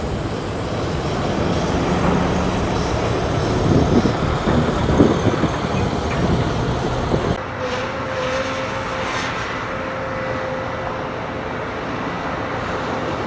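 Road traffic noise: a continuous rumble of passing vehicles. About seven seconds in, the low rumble drops away suddenly, leaving a lighter hiss with a thin steady hum.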